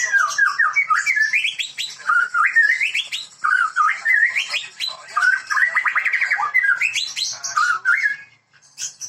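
White-rumped shama (murai batu) singing a continuous run of quick whistled phrases that sweep up and down, stopping about eight seconds in.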